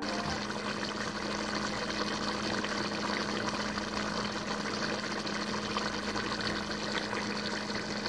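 Maggi noodles in a thin masala broth bubbling and sizzling in a nonstick pan while a spatula stirs them, with a steady low hum underneath.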